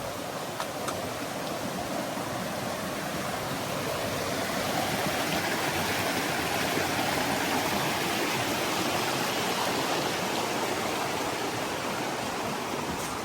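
Rushing water running high with recent rain: a steady rush that grows louder a few seconds in and eases slightly near the end.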